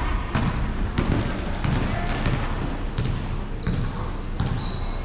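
Basketball dribbled on a hardwood court: a bounce roughly every half second to second. Short high sneaker squeaks come from players running, twice in the second half.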